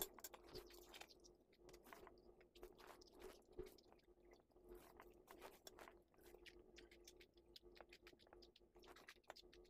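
Faint close-up chewing and biting of food: fried noodles and cucumber, with many small irregular clicks and crunches over a low steady hum.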